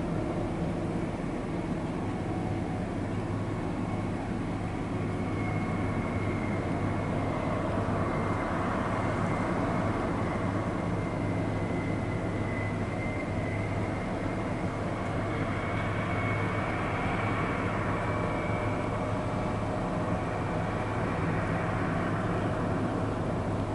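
Heavy mining water truck's diesel engine running with a steady low drone as the truck drives and sprays the haul road, with a faint high whine that wavers in pitch above it.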